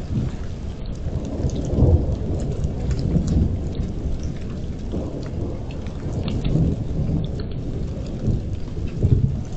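Thunderstorm: continuous rolling thunder over steady rain, with faint ticks of raindrops. The thunder swells louder about two seconds in, again around five seconds, and near the end.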